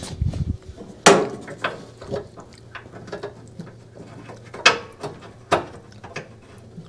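Clicks and knocks of metal parts being handled and fitted by hand in a Speed Queen washer's brake assembly during a brake pad replacement, with three sharper knocks: about a second in, and at about four and a half and five and a half seconds.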